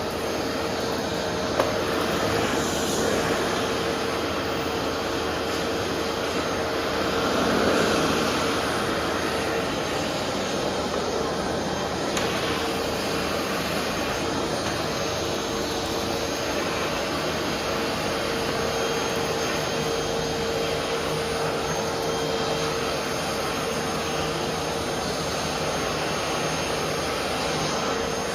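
Vacuum cleaner running steadily with a constant hum. There is a single sharp click near the start, and the noise swells briefly about eight seconds in.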